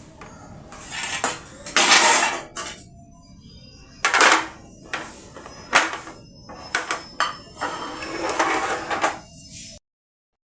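Dishes and cutlery clattering as they are handled and set down: a series of sharp clinks and knocks, some ringing briefly. It cuts off abruptly near the end.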